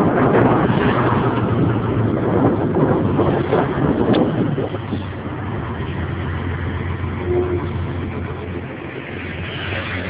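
Mercedes-Benz O371 city bus's diesel engine running with a steady low drone, loud in the first half and gradually easing off through the second half.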